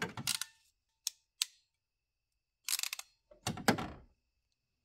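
Ratcheting wire crimper being worked, with mechanical clicks and handling noises in several short bursts: a few single clicks, then a quick run of clicks. The last burst near the end is the loudest.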